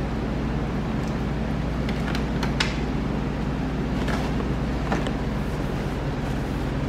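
Steady low machine hum, with a few faint clicks and rubs as a wet rag is handled and wiped over a plastic headlight lens.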